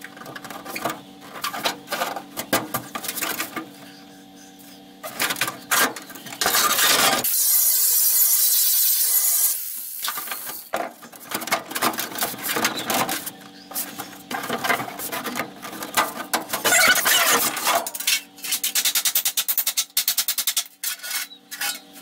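MIG welder tack-welding a sheet-steel floor patch panel into a 1966 Ford F100 cab, crackling in repeated short bursts over a low steady hum. Near the middle there is one loud, steady hiss lasting a couple of seconds.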